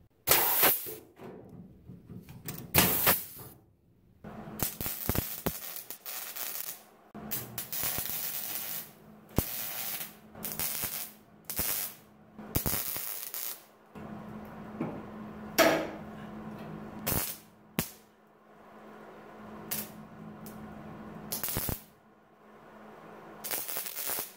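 A pneumatic air punch/flange tool firing twice, then a wire-feed welder plug-welding thin galvanized sheet steel, crackling and hissing in short bursts with brief pauses between welds.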